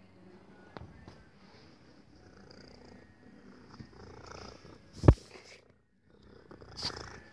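Domestic cat purring close to the microphone, with a sharp thump about five seconds in and a brief rustle near the end.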